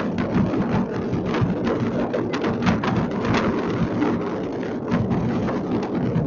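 Fireworks going off all over the city at once: a continuous din of many distant bangs and thuds, thick with crackling and sharp pops, with no let-up.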